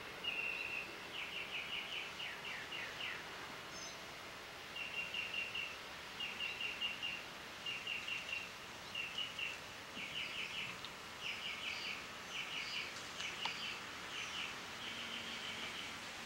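Outdoor ambience with a high rhythmic chirping: quick trains of clicks in short groups, repeated about once a second over a steady background hiss.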